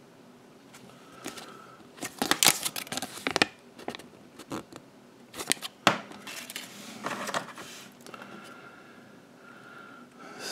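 Kinder Surprise paper leaflets rustling and crackling and small plastic toy pieces clicking as they are handled on a table: several clusters of short crackles and clicks.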